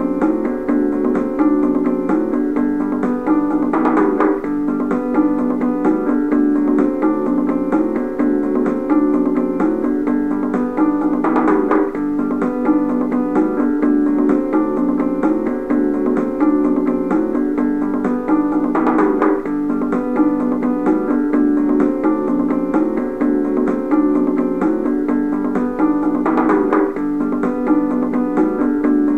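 Background instrumental music, steady, with a brighter swell recurring about every seven and a half seconds.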